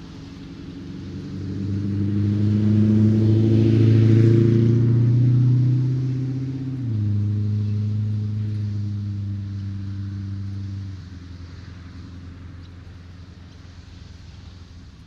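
A road vehicle's engine passing by. Its low hum swells up with tyre hiss, drops in pitch about seven seconds in, and fades away after about eleven seconds.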